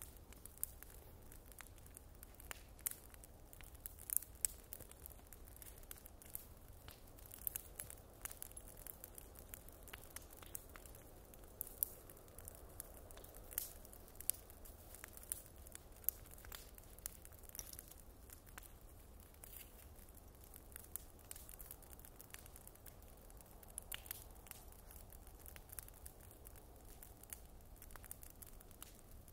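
Wood bonfire crackling, with sharp irregular pops over a faint low steady rumble.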